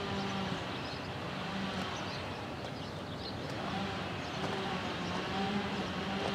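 Distant Norfolk Southern GE AC44C6M diesel locomotive approaching, a steady low engine drone and rumble under faint bird chirps.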